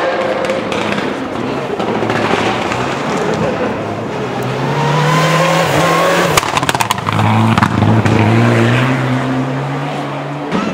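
Rally car engine revving hard on a gravel stage, its pitch climbing and dropping back as it changes gear. A quick run of sharp cracks comes about six seconds in.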